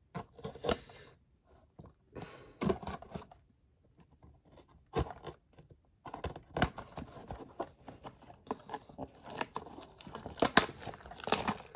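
Plastic shrink wrap being cut and torn off a cardboard trading-card box, crinkling and crackling with scattered clicks. There is a brief lull about four seconds in, then the crinkling gets denser through the second half.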